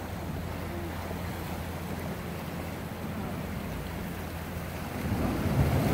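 Sea surf washing against a rocky shore, with wind buffeting the microphone as a steady low rumble; it swells louder near the end as a bigger wave surges in.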